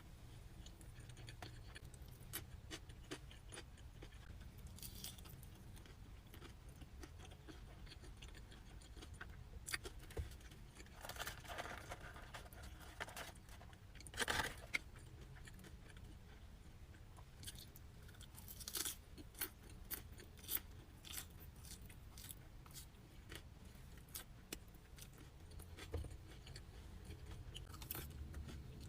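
Faint close-up eating sounds: scattered crunches and clicks of chewing, with a few louder crunches about halfway through and again about two-thirds of the way in.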